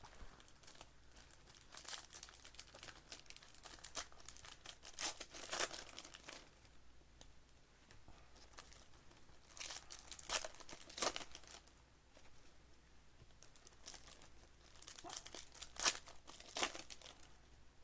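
Plastic wrapping on trading-card packs crinkling and tearing as the packs are opened by hand, in three spells of sharp rustling.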